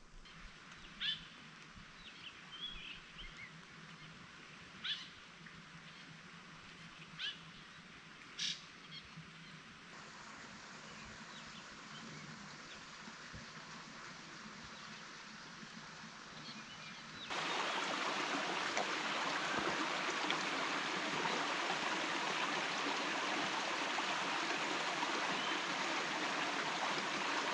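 A few short bird chirps over a quiet woodland background. About two-thirds of the way in, a loud, steady water noise cuts in suddenly and continues.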